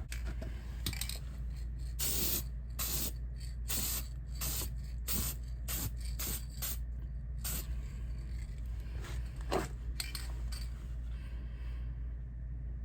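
Aerosol can of chrome aluminum spray paint hissing in a series of short bursts, light coats being misted onto car turn-signal housings; the spraying stops about ten and a half seconds in.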